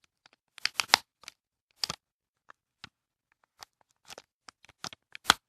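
Irregular light clicks and crinkling scratches of a laptop LCD video cable connector and its adhesive tape being worked loose by hand, with a cluster of louder ones about a second in and a sharp click near the end.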